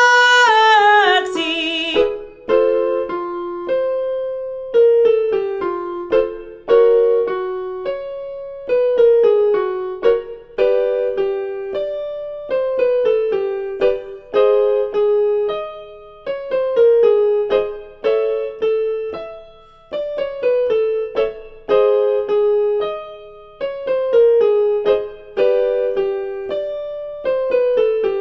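A sung voice gliding down in pitch ends about two seconds in. After that a piano plays vocal warm-up exercise patterns alone: short groups of notes, one group about every two seconds, in the singer's belt range.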